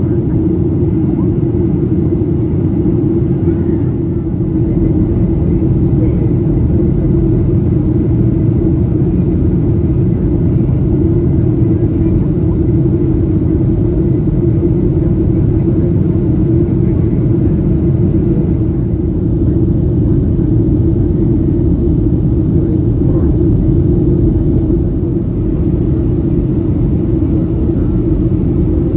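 Steady in-flight cabin noise of a Boeing 737-800 heard from a window seat over the wing: the drone of its CFM56 engines and rushing air, with a steady hum running through it.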